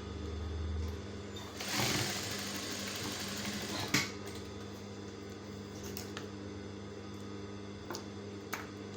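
Sewing machine humming steadily with its motor running, with a louder noisy stretch about two seconds in and a few sharp clicks later on.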